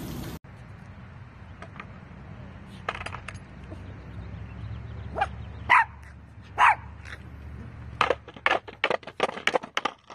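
A small dog barking in a few loud, spaced yaps, then a rapid string of short sharp sounds near the end, over the low steady rumble of skateboard wheels rolling on concrete.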